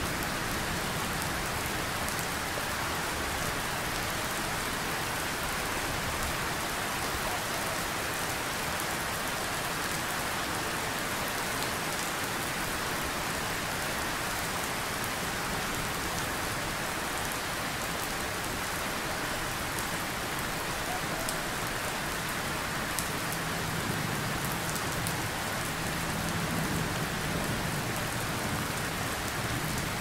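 Steady rain falling in an even hiss, with a low rumble swelling slightly in the last few seconds.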